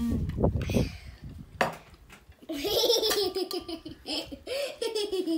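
A young girl laughing in a high voice, a run of quick giggles over the second half. Some low thumping noise comes just before it, near the start.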